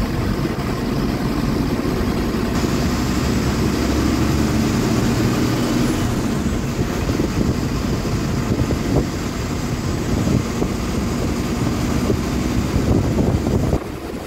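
Diesel engine of a BharatBenz bus running at cruising speed, heard from the front cabin, with a steady low rumble and road noise. The sound drops suddenly just before the end.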